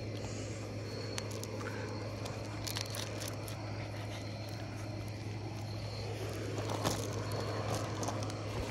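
Scattered light crunches and clicks of gravel under a puppy's paws and a person's shoes, over a steady low hum.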